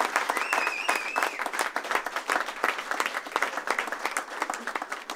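Audience applauding, with a short wavering whistle about half a second in; the clapping thins out near the end.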